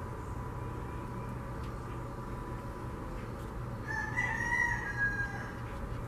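A rooster crowing once, a single call about a second and a half long starting about four seconds in and dropping in pitch at the end, over a steady background hum.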